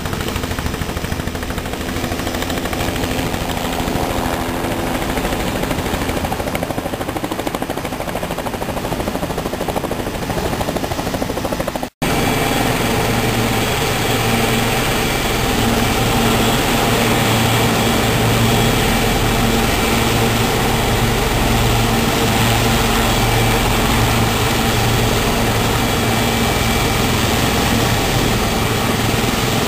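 Helicopter turbines and rotor running close: a steady high turbine whine over a low rotor throb as a Sikorsky S-76 helicopter lifts off a heliport pad and climbs away. The sound cuts out for an instant about twelve seconds in and comes back louder.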